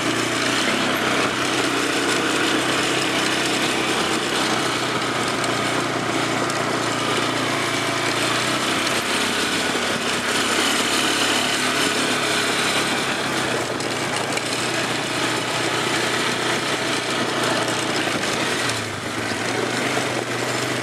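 ATV engine running steadily under the rider as it drives a rough dirt trail, with a band of steady low engine tones under a broad rushing noise.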